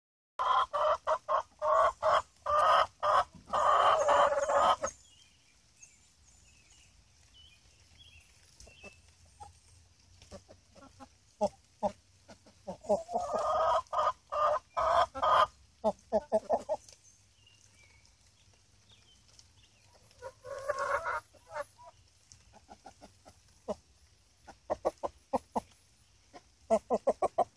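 Domestic hens clucking. There are long, loud runs of calls in the first five seconds, again about halfway through and briefly a little later, with quick short clucks between them and a rapid run of them near the end.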